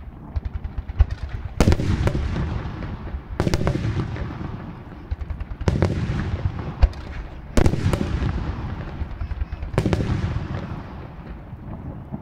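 Japanese aerial firework shells bursting overhead, five big booms about two seconds apart. Each boom is followed by a rolling rumble, and rapid crackling pops fill the gaps between them.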